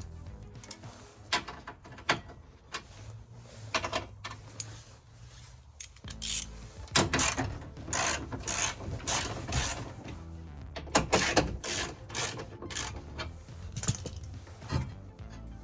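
Hand ratchet wrench clicking in quick repeated strokes, about two a second from about six seconds in, as fasteners on a car door are undone.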